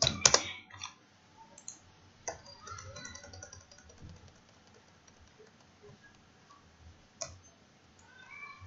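Computer mouse and keyboard clicks: a quick cluster of clicks in the first second, the loudest part, then a few single clicks, one about two seconds in and another about seven seconds in.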